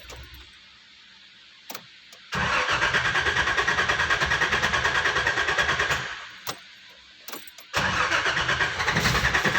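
A 1990 Nissan Safari's petrol engine cranking on the starter motor with an even, rapid chug, in two tries: a click of the key, about four seconds of cranking that stops without the engine catching, then a short pause and a second round of cranking near the end.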